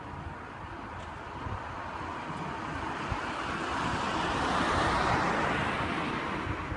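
A car passing on the road, its tyre noise swelling to a peak about five seconds in and then fading away.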